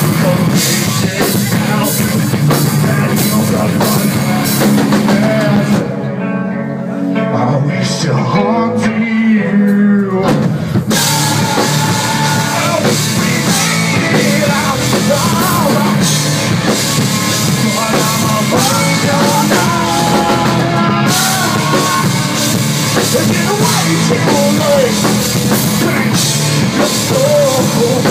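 Live rock band playing loud, with distorted electric guitar, bass and drum kit. About six seconds in the drums and bass drop out for a few seconds, then the full band comes back in.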